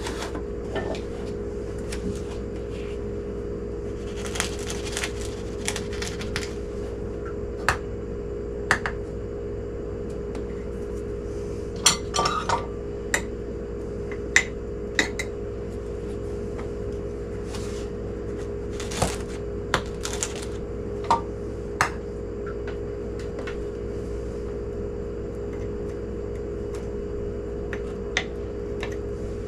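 Scattered clinks and knocks of a measuring cup against a glass canning jar as brown sugar is added a quarter cup at a time, over a steady low hum.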